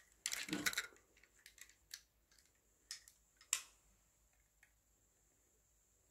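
Light handling sounds from plastic accessories: a short rustle, then a handful of sharp clicks and taps spread over the first few seconds as heart-shaped plastic sunglasses are put on and bangles knock together, then near quiet.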